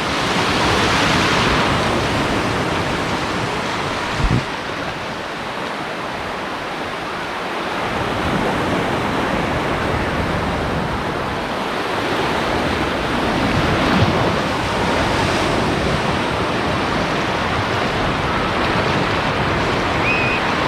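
Ocean surf breaking and washing up a sand beach, swelling and easing in waves, with wind on the microphone. A brief thump about four seconds in and another about fourteen seconds in.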